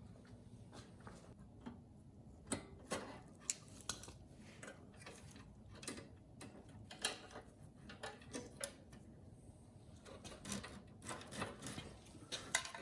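Scattered light clicks and small metallic taps from hands working a push mower's brake bail control cable, unclipping it and moving it in its housing.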